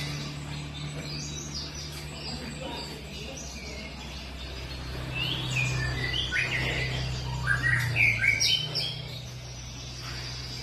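Aviary songbirds chirping and singing: quick chirps and short falling notes, busiest and loudest in the second half. A steady low hum runs underneath.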